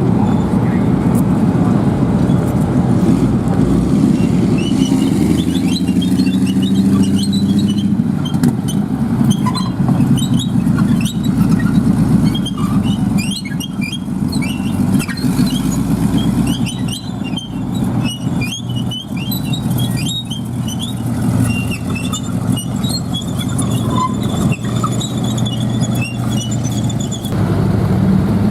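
Army tanks moving: a steady low engine rumble, with the tracks squealing and clicking from about four seconds in until shortly before the end.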